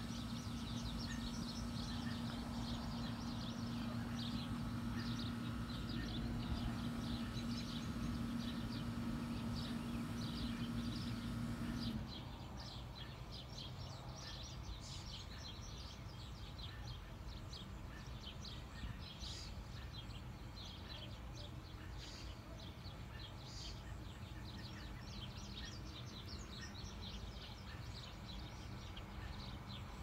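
Many birds chirping in quick short calls throughout. A steady low hum underneath cuts off abruptly about twelve seconds in.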